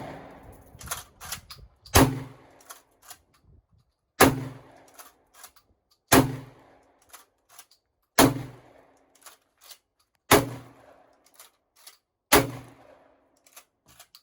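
Kel-Tec KSG 12-gauge bullpup pump-action shotgun fired six times, about one shot every two seconds, each blast trailing off briefly. Fainter sharp clicks and cracks come between the shots.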